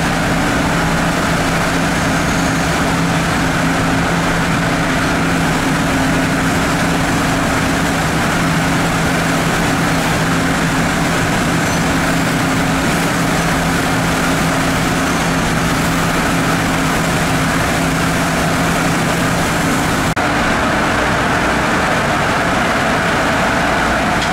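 Automatic car wash tunnel machinery running: a loud, steady mechanical hum over an even hiss. The lower part of the hum drops out about 20 seconds in.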